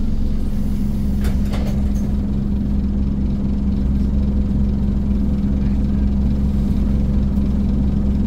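Scania N230 bus's diesel engine running steadily at an unchanging pitch, with a few brief rattles or clicks about a second and a half in.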